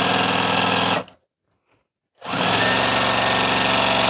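Juki TL-2010Q sewing machine with a walking foot stitching through quilt layers at a steady speed. It stops about a second in and starts stitching again after about a second's pause.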